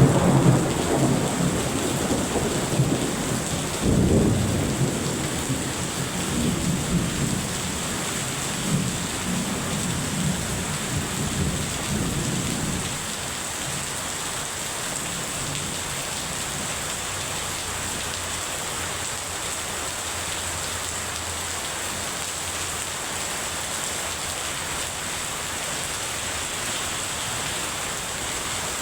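Heavy rain falling steadily, with rolling thunder rumbling low through the first dozen seconds. A fresh rumble starts suddenly about four seconds in. Then the thunder dies away, leaving only the even hiss of the downpour.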